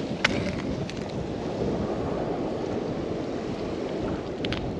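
Steady rush of ocean surf washing over the shore, mixed with wind on the microphone. A sharp click comes just after the start, and a couple more come near the end.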